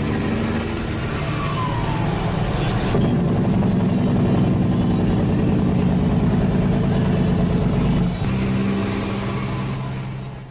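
Heavy vehicle engine running loud under the animated logo, with a high whistle that slides down in pitch and then holds steady. The sound changes abruptly twice, about 3 s and 8 s in, as edited-together pieces, and fades out at the end.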